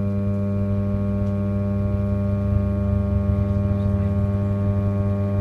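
Class 317 electric multiple unit's traction equipment heard from inside the carriage: a loud, steady drone of several held tones, growing a little stronger about halfway through.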